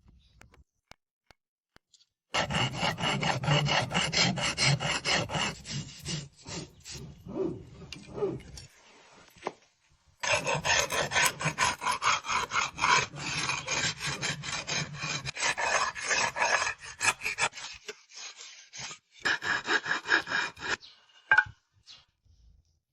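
Hand rasp being worked fast over the edge of an old beech-wood panel, shaping a moulded edge: rapid back-and-forth scraping strokes, about four or five a second, in three bouts with short pauses between.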